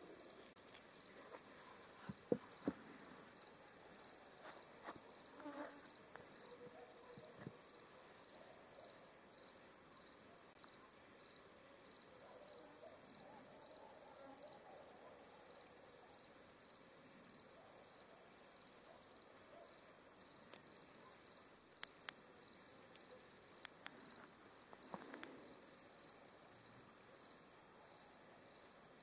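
Faint crickets chirping in an even, steady rhythm, with a few sharp clicks a little before the end.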